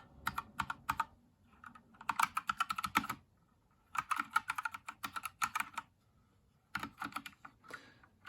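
Typing on a Havit KB487L mechanical keyboard with red switches. A few single key presses are followed by three quick runs of keystrokes with short pauses between them.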